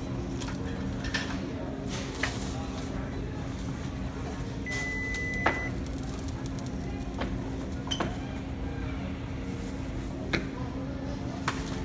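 Supermarket checkout-lane sounds: a steady hum under scattered clicks and knocks, and a single electronic beep lasting about a second near the middle.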